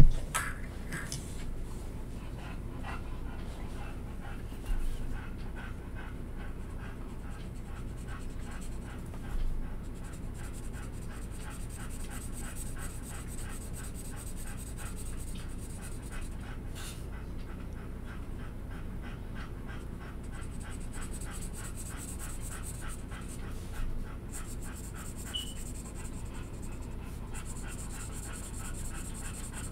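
Felt-tip marker scribbling on paper in quick, even back-and-forth strokes as a large area is coloured in, over a low steady hum. A few brief louder bumps come about five, nine and twenty-four seconds in.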